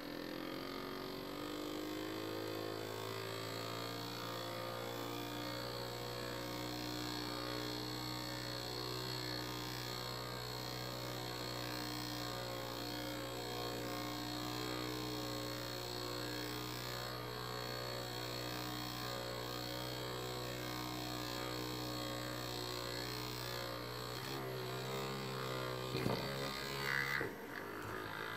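Small DC motor rig, two motors coupled by a brass shaft coupler, running with a steady electric hum after rising in pitch as it spins up. Near the end the hum wavers and stops, with a few knocks as the wooden base is handled.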